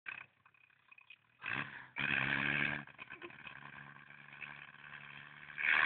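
Off-road buggy engine running steadily, with short louder surges of noise about a second and a half in, around two seconds in, and again near the end.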